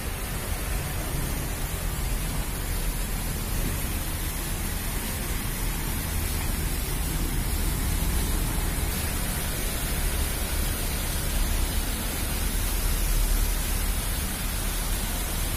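Steady city street noise: a low, uneven rumble under an even hiss, with no distinct events standing out.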